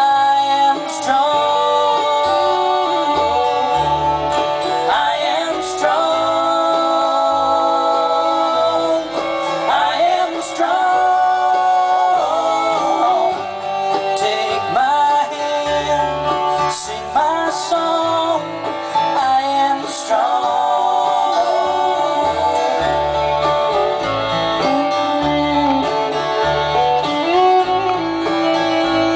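Bluegrass band playing live through a PA: acoustic guitars and upright bass, with a voice singing.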